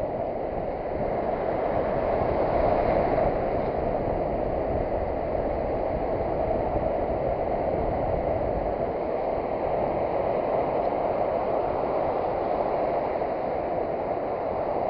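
Steady rush of surf washing on the beach, swelling slightly a couple of seconds in.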